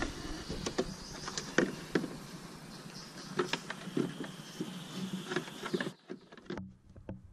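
Plastic tail-light assembly being handled and fitted into its opening in the car body: irregular light clicks and taps with rustling, dying away about six seconds in.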